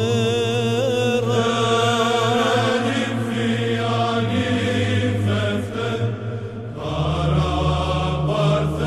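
Byzantine Orthodox chant: a voice sings a slow, ornamented melody over a steady low held drone, which shifts to a lower note about seven seconds in.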